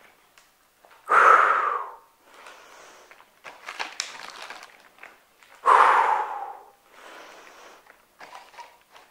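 A woman breathing hard under exertion, one forceful exhale per repetition: two loud blown-out breaths about four and a half seconds apart, with quieter inhales between them.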